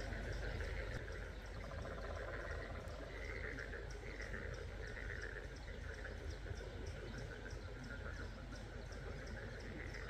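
A chorus of native frogs calling at their breeding site: breeding-season mating calls overlapping in a middle-high band, over a steady run of short high-pitched pulses several times a second and a low hum.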